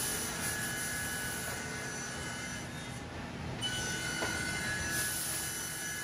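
Woodmaster WM-1625RS5 CNC machining centre running its rotating saw head over a wood panel: a steady mechanical noise with high whining tones that shift slightly about four seconds in.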